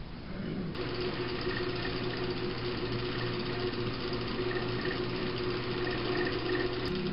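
Drill press switched on about a second in and running steadily with a constant motor hum, as it is set up to bore shallow holes with a Forstner bit.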